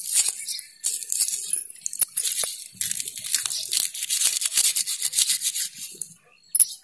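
Garlic cloves being peeled by hand: the dry, papery skins crackle and tear in quick, irregular little snaps, stopping about six seconds in.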